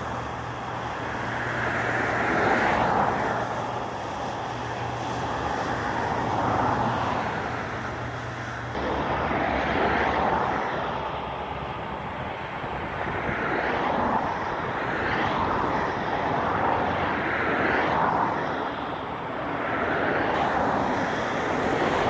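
John Deere 2058 combine harvester's diesel engine and threshing machinery running steadily while it cuts wheat. The drone swells and fades every few seconds.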